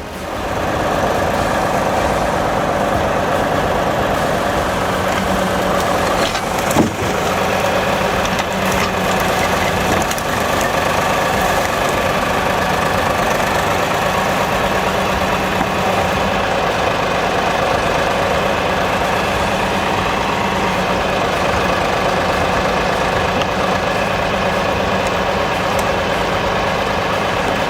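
Heavy forestry machine's diesel engine running steadily at constant speed. A single sharp knock comes about seven seconds in.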